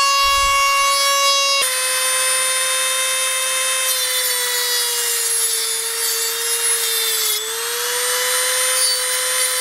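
Dremel rotary tool with a cutoff wheel running with a steady high whine, then grinding into the metal case of a TO-3 power transistor from about a second and a half in. Under load its pitch sags and wavers, dipping briefly near the end.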